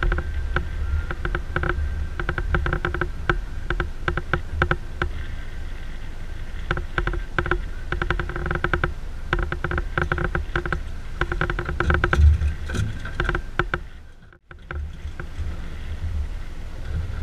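Boat's outboard motor running steadily in a fast, chopped pattern under a low wind rumble on the microphone. The sound briefly drops almost to nothing near the end.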